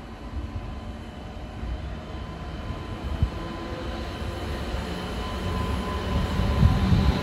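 WAP-7 electric locomotive hauling passenger coaches, running with a low rumble and a steady electric hum, growing louder as it draws near. A few low thumps come near the end.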